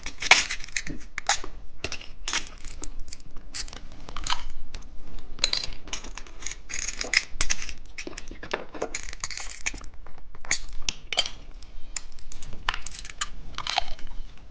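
Plastic candy wrapper being torn open and crinkled, with irregular crackles and rips throughout.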